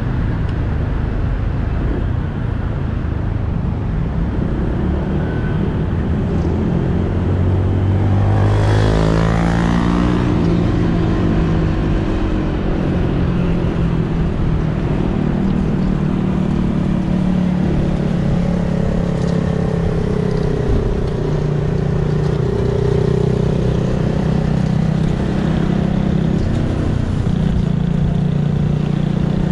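Honda PCX 125 scooter's single-cylinder four-stroke engine running under way with road noise. About eight seconds in the engine note climbs as the scooter accelerates, then holds steady.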